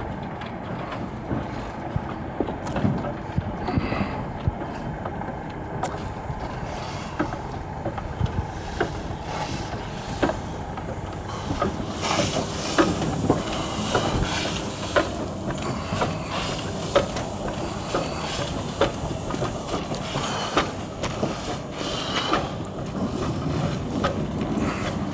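La Meuse-built 0-2-0 tank steam locomotive moving slowly, with irregular knocks and clanks from its running gear and wheels on the track. A hiss of steam grows stronger about halfway through.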